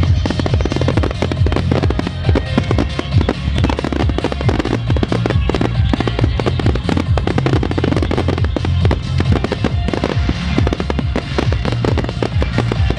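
A dense, continuous barrage of firework shells bursting and crackling, many bangs in quick succession, with music playing throughout.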